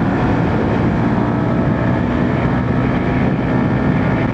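Motorcycle engine running steadily at highway speed, about 100 km/h, under a constant rush of wind and road noise, picked up by a microphone inside the rider's helmet fitted with a fur windscreen.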